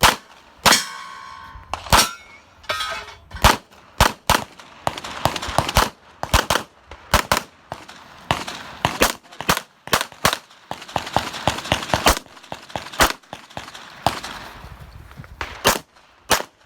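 A string of pistol shots from a .40 S&W STI Limited-division pistol, about two dozen fired in quick groups with short pauses, with steel targets clanging and briefly ringing when hit.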